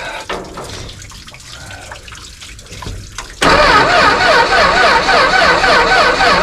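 Water running from a garden hose for about three seconds. Then, abruptly, the 245 Hemi straight-six engine is heard running loudly, its pitch wavering up and down in a regular pattern.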